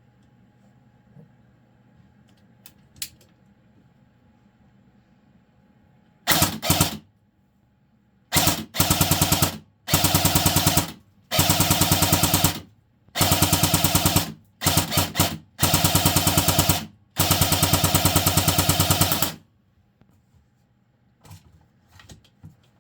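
Barra 400e battery-powered BB gun firing full-auto bursts: about nine bursts of very rapid shots, each half a second to two seconds long, starting about six seconds in. A couple of faint clicks come before the first burst.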